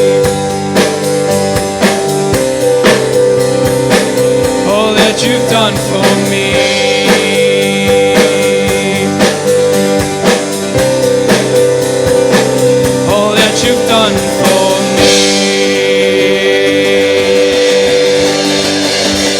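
Live worship band playing on after the last sung line, with a steady beat under sustained chords.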